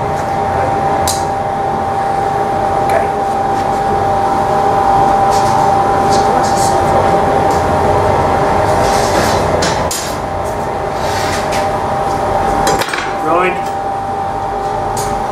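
Steady running of glassworks furnace burners and blowers, with a faint steady whine, under scattered sharp clinks and taps of metal tools against the iron and glass as the piece is worked at the bench.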